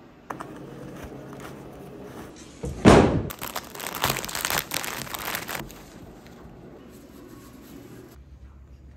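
A thump about three seconds in, then a couple of seconds of crinkling and tearing as the small wrapper of a vending-machine disposable razor is torn open by hand.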